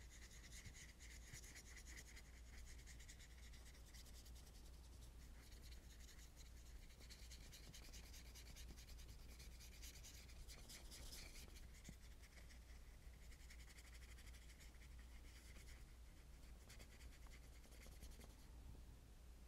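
Faint brushing and scrubbing of a paintbrush's bristles over the painting paper as paint is worked in. The strokes run on almost without a break and stop shortly before the end, over a low steady hum.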